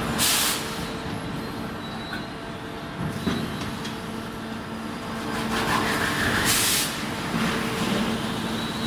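Raute veneer peeling line running, a steady machinery hum with a faint steady tone. Two short sharp hisses, each about half a second long, come just after the start and about six and a half seconds in.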